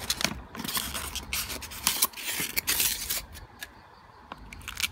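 Cardboard box flaps and packaging being handled and pulled open: a run of dry scraping and rustling for about three seconds, then quieter with a few small clicks near the end.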